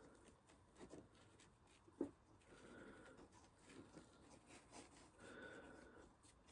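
Faint rustling and rubbing of a paper towel being worked into a small glass jar, with light clicks throughout and one sharp tap about two seconds in.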